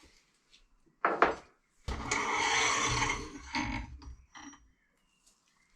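Workshop handling noise: a sharp knock about a second in, then a second or so of scraping and clattering, as metal tools and parts are moved about, fading out with a couple of smaller knocks.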